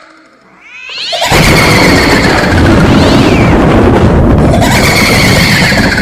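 Horror sound effect: eerie cat-like yowling cries rise out of a quiet start. A loud, dense noise with a high tone that slowly falls in pitch follows and starts over near the end.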